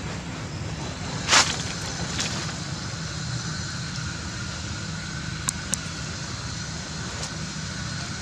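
Steady low background rumble, with one sharp crackle a little over a second in and a few fainter clicks later, from a macaque peeling and eating rambutan fruit on dry leaves.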